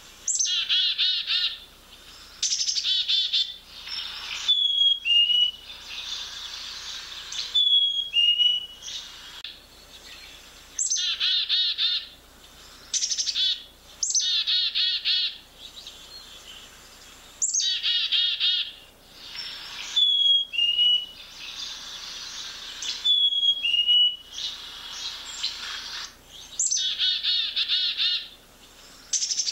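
Black-capped chickadees calling: repeated short bursts of rapid, buzzy 'dee-dee-dee' notes, and four times a clear two-note whistle that falls in pitch.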